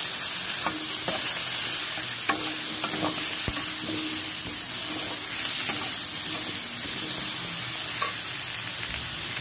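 Oil sizzling steadily in a frying pan as a metal spatula stirs pieces of star fruit and potato, with a few sharp clicks of the spatula against the pan.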